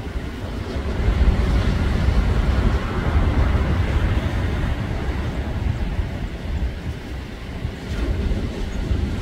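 Heavy surf breaking and washing up the beach, swelling about a second in, with wind rumbling on the microphone.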